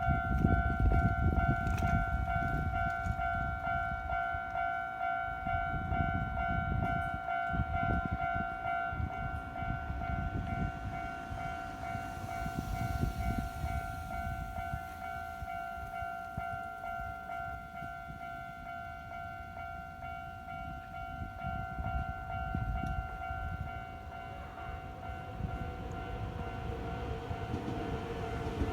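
Japanese level crossing warning bell ringing in a steady, rapidly repeating electronic ding, loud for the first several seconds and then softer, while a train rumbles past over the crossing. Near the end a falling whine rises above the rumble.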